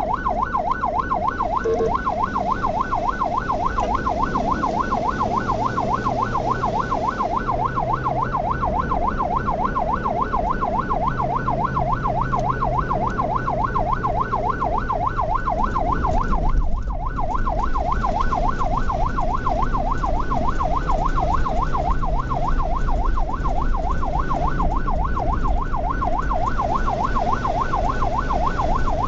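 Ambulance electronic siren in a fast, rapidly rising-and-falling yelp that repeats without a break, over the rumble of engine and road noise. A brief bump comes a little past halfway.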